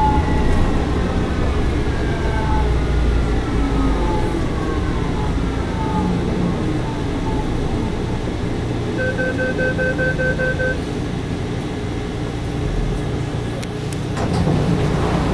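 Bombardier rubber-tyred driverless metro train running on its guideway, its drive whine falling in pitch as it slows toward a station. About nine seconds in, a quick run of short electronic beeps sounds.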